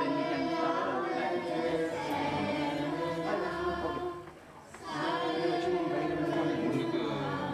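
A group of voices singing a devotional hymn together, one phrase breaking off about four and a half seconds in before the singing starts again.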